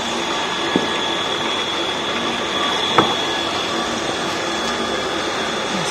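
Steady whir of a 0.5 HP electric water pump running and pushing water through plastic pipework, with water running from an opened tap. There is a light knock about three seconds in.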